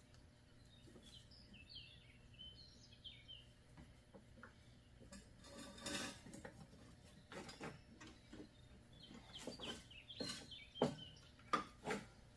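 A bird chirps a few short notes, then come a brief rattle and a series of sharp metallic clinks and clanks as tools or metal parts are handled, the loudest near the end.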